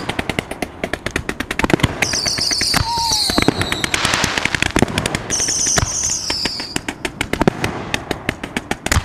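Excalibur canister-shell fireworks firing and bursting: a dense run of sharp cracks and crackling pops, twice joined by a high falling whine.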